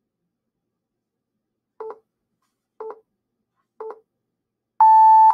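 Electronic countdown timer beeping: three short beeps a second apart, then a louder, longer steady tone as it reaches zero, signalling that time is up.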